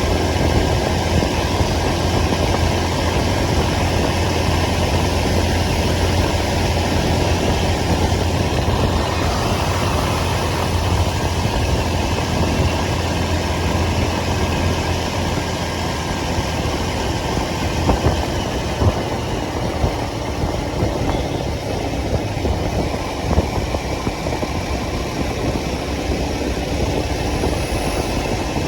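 Motorcycle engine running during a city ride, a steady low engine note over continuous road and wind noise; the low note fades away a little past halfway through while the noise carries on, with a few brief louder knocks later.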